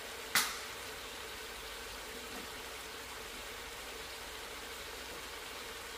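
Pot of oxtails simmering on the stove, a steady bubbling hiss over a faint hum, with one sharp clink about half a second in.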